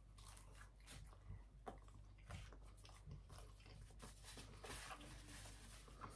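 A person biting into a slice of pepperoni pizza and chewing it, with faint small crunches and mouth clicks.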